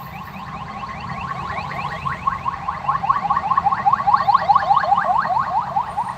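Ambulance siren in its fast yelp mode: quick rising sweeps, several a second, growing louder as it draws near. A low steady hum runs underneath.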